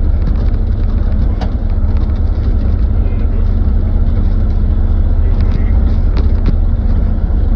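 Kubota KX040-4 mini excavator's diesel engine running steadily under work, with a few sharp knocks about a second in and again near the end.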